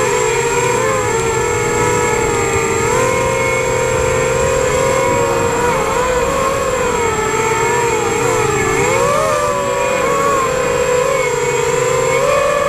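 Electric motors and propellers of an FPV drone heard through its onboard camera: a steady whine of several close pitches that shift together with the throttle, dipping about eight seconds in and climbing back.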